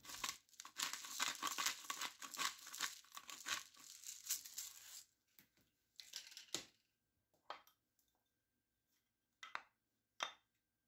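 Pepper grinder being twisted: a fast, dry crackle for about five seconds that stops suddenly, followed by a few faint clicks and taps as containers are handled.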